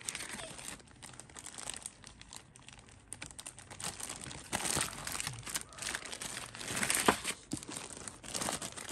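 Clear plastic packaging bags and a paper leaflet crinkling and rustling as hands move new cordless drills about. It is irregular, with louder crackles about halfway through and again about seven seconds in.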